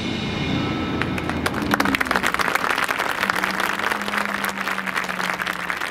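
The marching band's last chord dies away. About a second in, the audience breaks into applause that grows dense and carries on.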